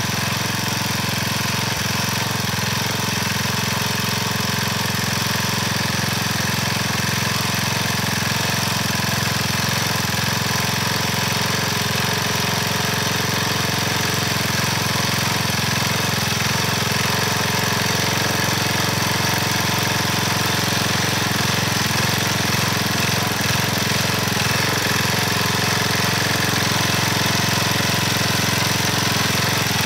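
The small gas engine of a front-tine garden tiller running steadily under load as its tines churn through dry soil.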